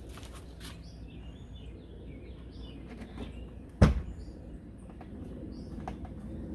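Small birds chirping in the background, with one sharp knock about four seconds in.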